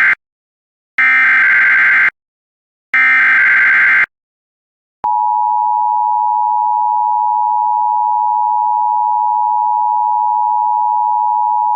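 Emergency Alert System SAME header: the tail of one burst of screechy digital data, then two more bursts about a second long with a second's gap between them. About five seconds in, the long steady EAS attention tone starts.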